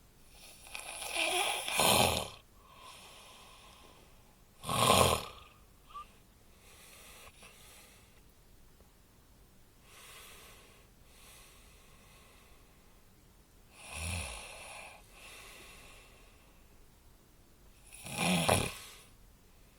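Snoring: four loud snores spread several seconds apart, with fainter breathing between them.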